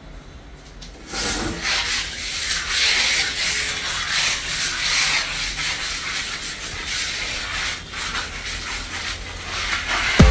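Flooring adhesive being scraped across a bare concrete floor with a hand spreader strip. The scraping starts about a second in and runs on continuously, swelling and easing with the strokes.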